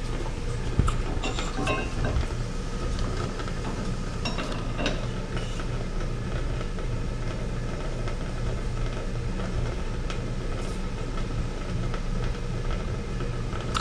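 Steady hum and hiss of running steam-plant machinery, with a few light metallic clicks in the first five seconds.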